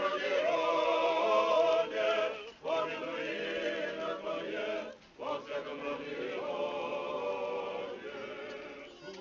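Choir singing an unaccompanied Orthodox church hymn in sustained phrases, pausing briefly about two and a half and five seconds in.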